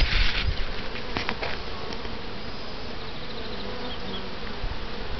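Honeybees buzzing steadily in large numbers around an open hive full of frames.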